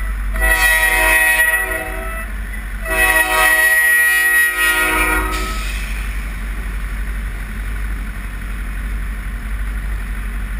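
CSX freight locomotive's air horn sounding a chord of several notes at a grade crossing: two blasts, the second the longer. From about five seconds in, the horn stops and the freight cars roll past close by with a steady rumble.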